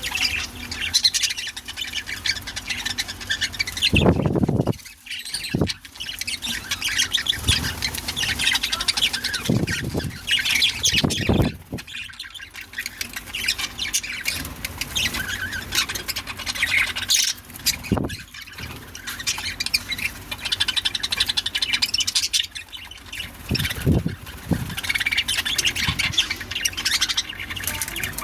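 Pet budgerigars chattering, chirping and squawking continuously as a group, with several brief low thumps mixed in.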